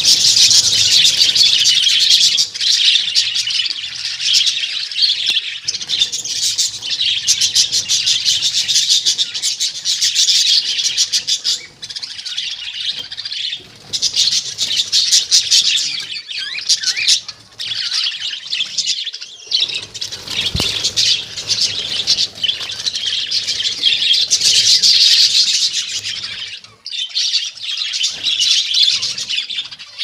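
Budgerigars chattering and chirping continuously, a dense, busy warble with a few brief lulls.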